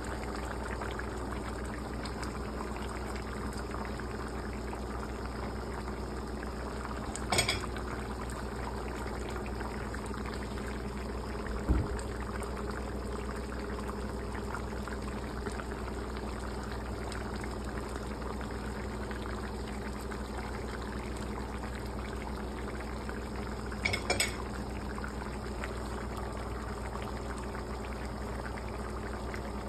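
Beef rendang curry bubbling steadily in an uncovered wok, the sauce being simmered down to thicken. A few brief knocks sound over it.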